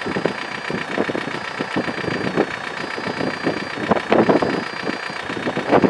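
Inside a car with its engine running: a steady engine hum, with many irregular short knocks and bumps all through and a busier cluster about four seconds in.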